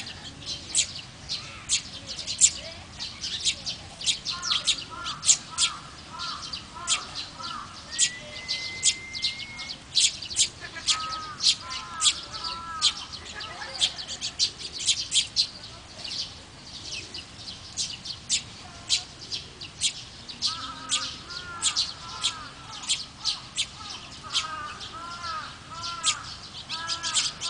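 Eurasian tree sparrows chirping, a rapid string of short, sharp, high chirps typical of fledglings begging while an adult feeds them. Runs of lower, arching calls come and go.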